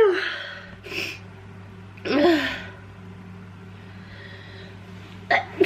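A man with a head cold sneezing in repeated fits: the tail of one sneeze at the start, another sneeze about two seconds in, then sharp catching intakes of breath near the end as the next sneeze builds.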